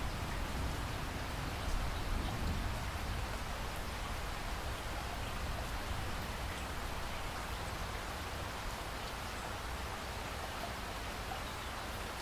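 Steady rain falling, an even, unbroken hiss of drops that holds level throughout.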